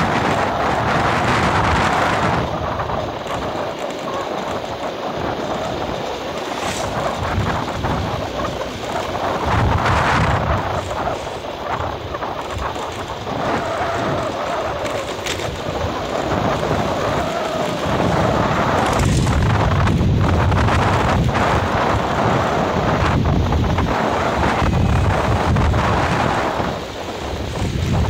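Wind buffeting the microphone of a vehicle riding along a road, a loud rumbling rush that swells and fades.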